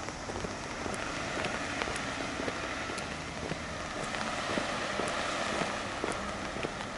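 A walker's footsteps under a steady background hiss, with a light, sharp tick about once a second.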